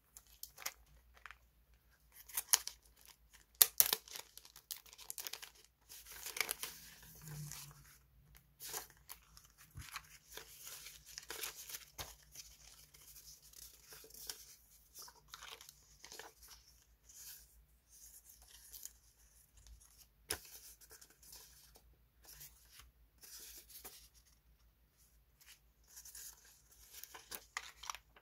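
Plastic sticker-pack sleeves crinkling and thin lace-edged paper sheets rustling as they are handled, in irregular crackly bursts. A few sharper crackles come near the start and about twenty seconds in.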